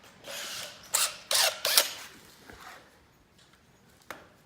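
Ratchet strap being handled: a short rustle, then three sharp clacks from its ratchet buckle about a second in, then quiet with a single click near the end.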